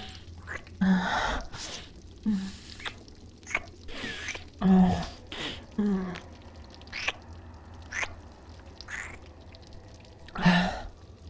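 Close-miked ASMR kissing: a woman's wet lip smacks and kisses, broken by short breathy gasps and soft hums, a few at a time with pauses between.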